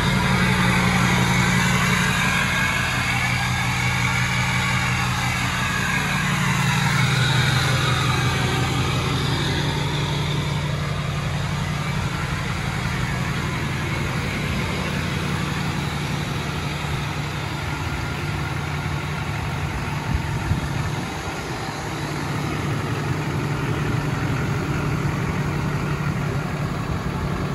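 2004.5 LLY Duramax 6.6-litre V8 turbodiesel in a Chevrolet Silverado 2500HD idling steadily just after a cold start.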